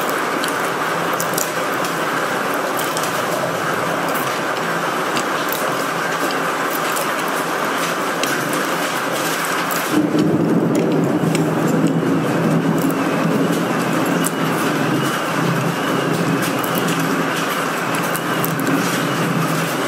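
Storm wind and rain as a steady rushing noise. About halfway it grows slightly louder and deeper, and a faint wavering whistle joins it for the rest.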